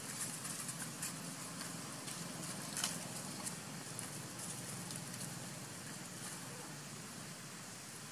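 Dry leaf litter crackling and rustling under macaques moving about, with scattered short crackles and a louder one about three seconds in, over a steady high hiss.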